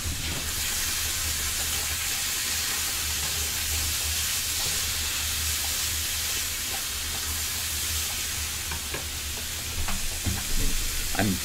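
Food sizzling steadily in a frying pan on a stove, with a few faint clicks near the end.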